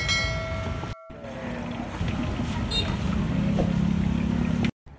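Busy outdoor street ambience with a steady low rumble of traffic. A short, steady pitched tone sounds for about the first second, and a lower hum sets in about three seconds in. The sound cuts out briefly twice.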